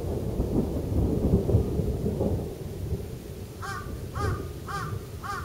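Thunder rumbling with a crackling texture, dying away after about two and a half seconds. Near the end a crow caws four times, about half a second apart.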